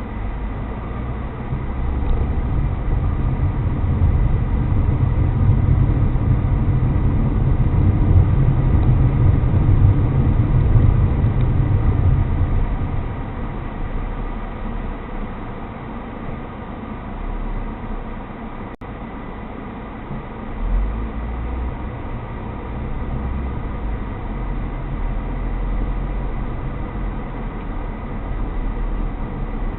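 Car cabin noise while driving: a steady low engine and road rumble that swells over the first dozen seconds and then eases off, with a single sharp click about two-thirds of the way in.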